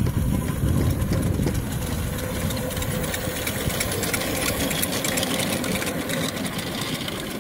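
Miniature steam locomotive chuffing as it hauls its passenger cars past, with the train clattering along the track; the sound fades as it moves away.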